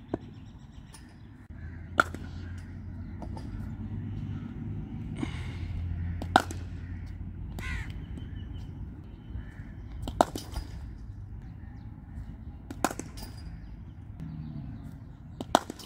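Cricket bat striking the ball in net practice: five sharp cracks, one every three to four seconds, a couple of them as a quick double knock.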